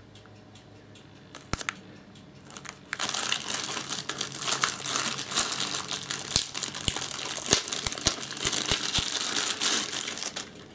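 Clear plastic bag crinkling and crackling as a battery charger is worked out of it by hand, with scattered sharp clicks. It starts in earnest about three seconds in.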